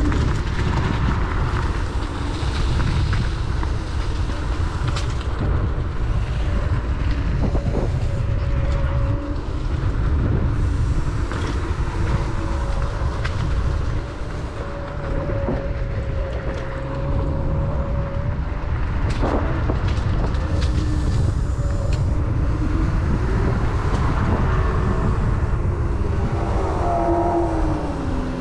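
Kaabo Wolf King GT electric scooter riding along a paved path: a loud, steady rush of wind and tyre noise, with the motor's thin whine bending up and down in pitch as the speed changes. A few sharp knocks come from bumps and cracks in the pavement.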